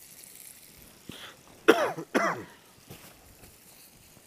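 A person coughs twice, about half a second apart, a little under two seconds in.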